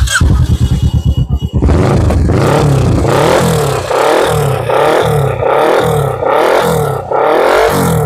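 Kawasaki Ninja 650 parallel-twin engine running through a full header system and a replica Akrapovič R9 carbon muffler held on by hand. It is choppy and uneven for the first second and a half, then steady, then revved in quick repeated throttle blips that rise and fall in pitch, to show off the exhaust note.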